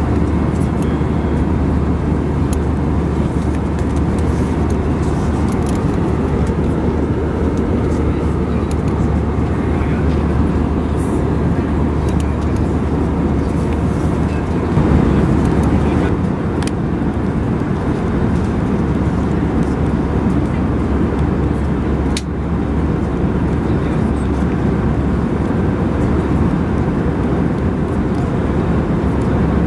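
Airbus A320 cabin noise in cruise: a loud, steady low rush of airflow and engine noise, with a few light clicks and one sharp click about two-thirds of the way through.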